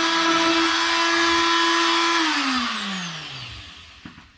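Handheld electric cutting tool running at a steady pitch as it cuts out a marked section, then switched off about two seconds in and winding down, its pitch falling away as it fades.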